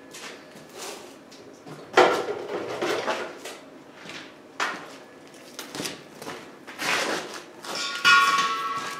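Clunks, knocks and rustles of gear being shifted and handled while an extension cord is fetched from a cluttered floor, with a sharp knock about two seconds in and a clatter with a brief ringing tone near the end.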